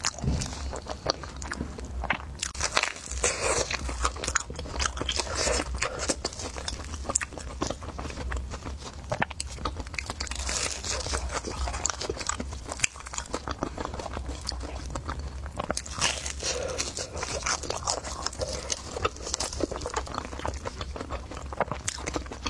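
Close-miked chewing and biting of crunchy food, with many irregular crisp crunches and mouth clicks.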